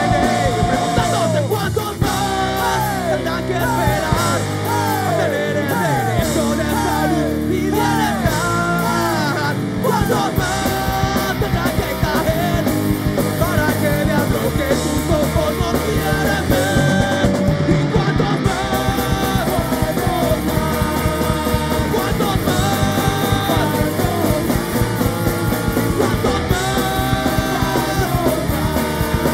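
Rock band playing live, with electric guitar and drums, while a man sings into the microphone.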